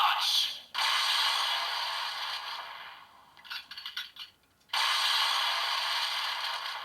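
Electronic sound effects played through a CSM Lockseed toy's speaker: two hissing bursts, each a couple of seconds long and starting suddenly, with a few light plastic clicks between them.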